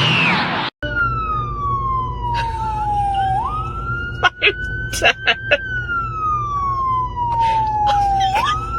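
A siren wailing in a slow cycle: its pitch slides steadily down for a few seconds, jumps quickly back up, holds briefly and slides down again, over a steady low hum. A few sharp clicks come near the middle. In the first moment, a noisy whoosh from a different sound cuts off abruptly before the siren starts.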